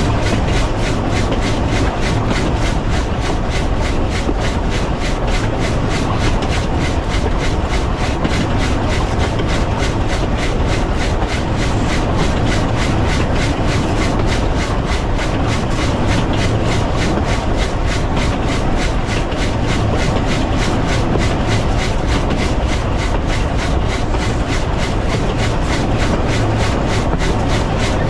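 W class steam locomotive running steadily along the line: a continuous rumble and rush of running noise with a fast, even beat.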